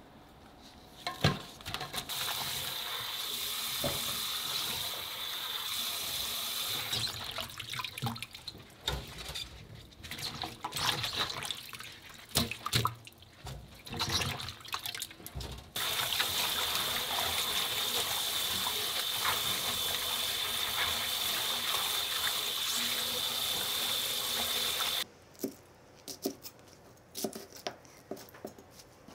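Kitchen tap running into a stainless steel bowl as salted radish chunks and radish greens are rinsed by hand: the tap runs twice with splashing and swishing in between. Near the end the water stops and a knife cuts a few times on a plastic cutting board.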